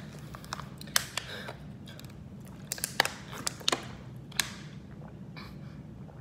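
Mouthful of hot Cheetos being chewed: a run of sharp, short crunches between about one and four and a half seconds in, then quieter chewing.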